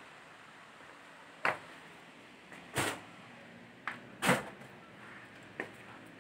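Flip-flops slapping on a hard tiled floor as someone walks: about five sharp slaps at an uneven pace, the loudest a little past the middle.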